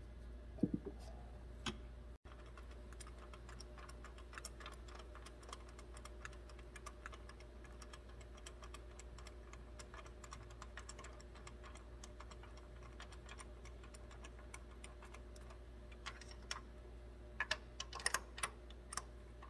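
Faint, irregular clicking of a small hand ratchet on an extension as a new spark plug is run into the cylinder head, with a low knock about a second in and a few sharper clicks near the end.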